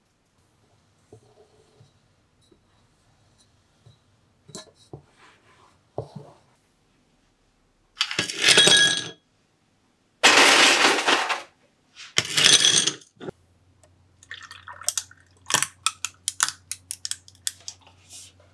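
Ice cubes tipped from a scoop into a tall drinking glass, clattering against the glass in three loud pours. Then milk is poured over the ice, with many quick light clinks and crackles from the ice.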